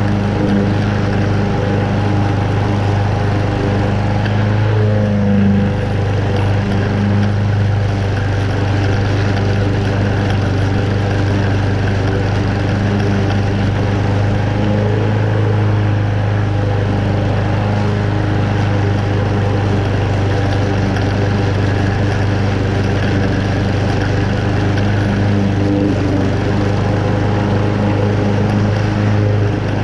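Honda engine of a Toro Super Recycler walk-behind lawn mower running steadily with a strong low hum while its blade cuts moderately wet, tall grass.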